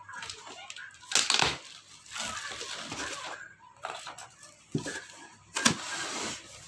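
A cookware set's packaging being unwrapped and handled: crinkling and rustling, with a few sharp knocks.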